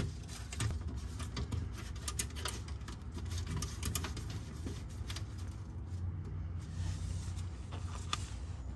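Faint scattered clicks and light scrapes of 10 mm bolts being threaded in by hand on a car's underbody access cover, over a steady low hum.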